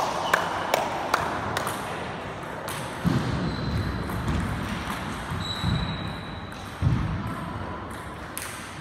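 Table tennis ball bouncing, sharp clicks about two and a half a second for the first second and a half, then stopping. A quieter stretch follows with a couple of dull thuds and a few short, thin high squeaks.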